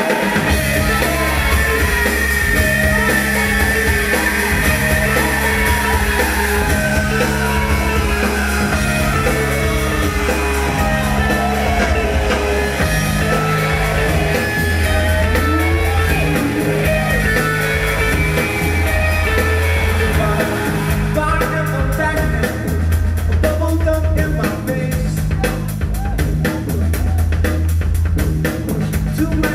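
Rock band playing live: a repeating bass line under guitar and drums, the drums turning to a fast, busy beat about two-thirds of the way through.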